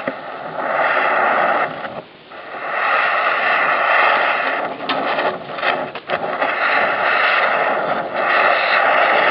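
Gas cutting torch blowing a low flow of oxygen into a clogged moped muffler, burning off the oil caked inside: a steady rushing hiss that drops out briefly about two seconds in and a few times around five to six seconds.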